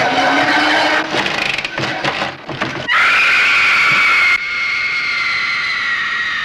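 Power drill whining as it bores through a wooden door, then about three seconds in a long, high-pitched shriek that holds and sinks slightly in pitch.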